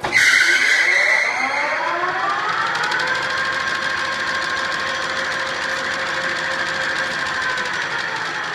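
Kuraki KHB-30 engine lathe starting up: the spindle and chuck spin up with a whine that rises in pitch over the first three seconds, then run steadily at speed.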